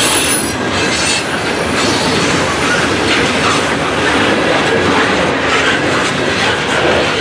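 CSX coal train's hopper cars rolling past close by: a steady, loud rumble and clatter of steel wheels on rail.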